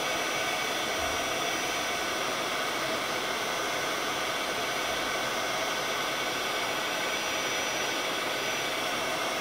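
Handheld embossing heat gun running steadily, its fan blowing with a constant whine over a rush of air as it melts embossing powder on stamped cardstock.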